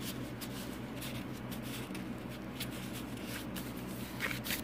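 Paper rustling, with scattered soft clicks and taps, as the pages and a paper tag of a handmade paper journal are handled and turned.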